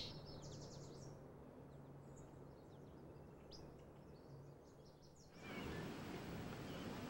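Faint outdoor ambience with scattered short high bird chirps over a low steady hum. About five seconds in it switches to a louder, even wash of outdoor noise.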